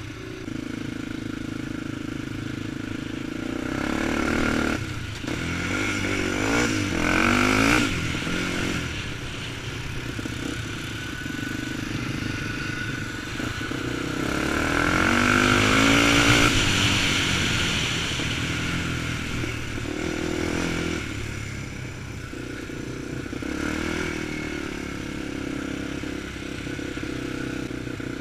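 Honda 400EX quad's single-cylinder four-stroke engine running under way, its pitch rising and falling as the throttle is worked, loudest in two swells about a quarter of the way in and near the middle.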